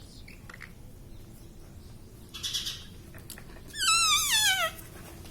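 Pet Indian ringneck parakeet calling: a short raspy squawk, then a wavering whistle that falls in pitch over about a second.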